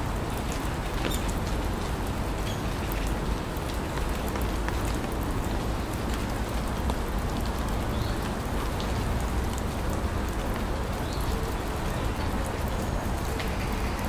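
Steady rain falling, with scattered sharp ticks of drops and a low rumble underneath.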